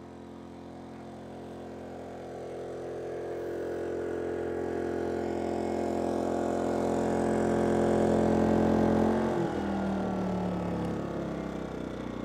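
Westinghouse iGen2200 inverter generator running under load, growing steadily louder over about eight seconds. About nine seconds in, its engine speed drops suddenly and settles into a lower, steady hum as the load is taken off.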